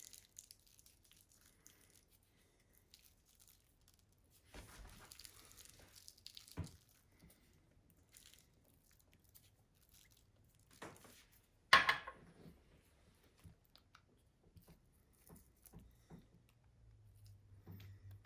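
Faint handling sounds of garnishing by hand, fingers sprinkling sesame seeds and chopped scallions from small bowls, with light rustles. A single sharp knock about twelve seconds in, as a small ceramic bowl is swapped on the granite countertop, and a low hum comes in near the end.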